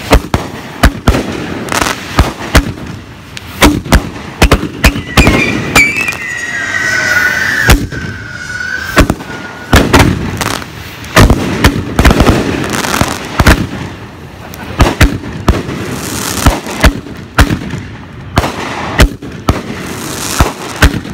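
Aerial fireworks going off in quick succession: many sharp bangs of bursting shells over a steady crackle. A long high tone falls in pitch from about six to nine seconds in.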